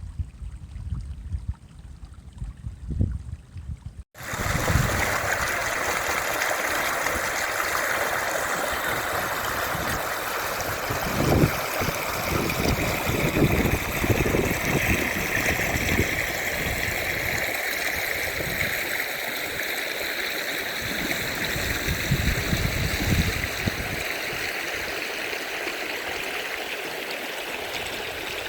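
Faint low rumbling for about four seconds, then after a sudden cut a steady rush of flowing water.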